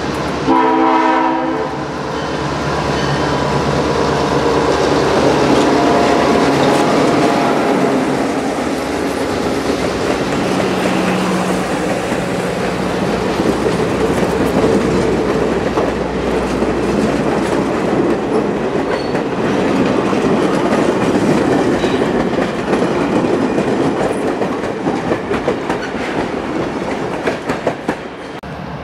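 A diesel locomotive's air horn sounds one blast of about a second and a half, about half a second in. Then the New Hope Railroad passenger train passes close by: first the locomotive's engine rumble, then the coaches' wheels clicking over the rail joints, with the loudness going ragged near the end as the last car rolls past.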